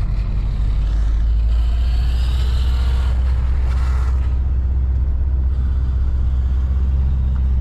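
Subaru WRX STi driving, heard from inside the cabin: a steady low engine and road rumble, with a faint whine rising in pitch for a couple of seconds near the start.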